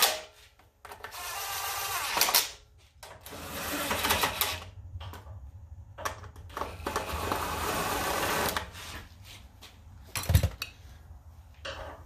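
Cordless DeWalt drill/driver running in three bursts of about two seconds each, driving in the screws that hold the air cleaner box on a generator engine. A single thump comes about ten seconds in.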